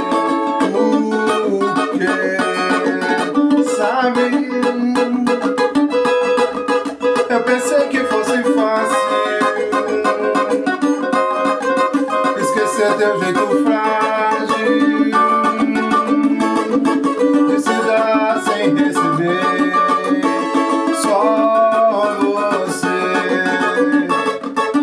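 A man playing a plucked-string instrument, strumming steadily in a romantic ballad, with his voice singing along at times.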